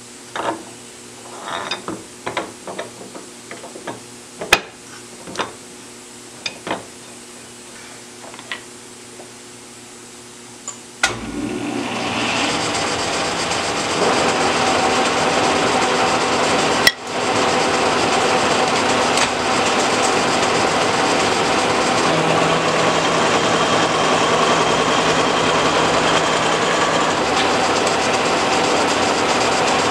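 Metal clanks and knocks as a tool holder is handled and fitted into a mill's spindle. About 11 seconds in the mill starts, and a roughing end mill then cuts steadily into railroad track steel. There is one sharp snap about 17 seconds in.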